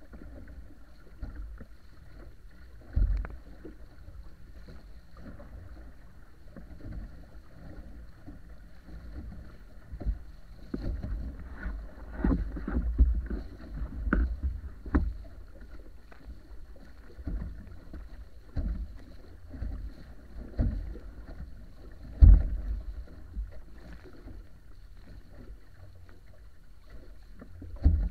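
Water rushing and splashing along the wooden hull of a wa'apa outrigger canoe under sail, over a steady low rumble. Irregular loud slaps and splashes come as the hull strikes the chop, clustered in the middle, with the loudest a little over two-thirds of the way through.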